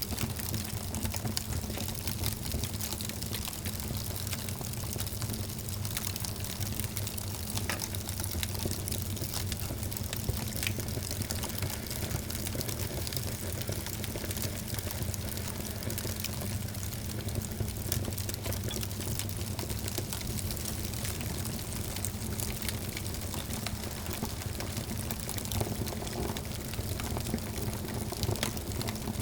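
Wood fire burning in a fireplace, crackling with a dense, continuous run of small pops and snaps over a steady low rumble.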